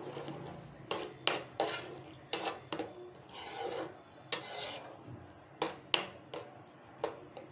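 Spatula stirring and scraping a thick masala paste around a nonstick kadhai, with repeated sharp taps of the spatula against the pan between the rasping strokes.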